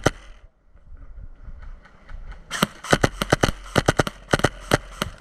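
Airsoft gun firing in rapid strings of shots: the last shots of one string right at the start, a pause of about two seconds, then a second string of about six shots a second lasting a little over two seconds.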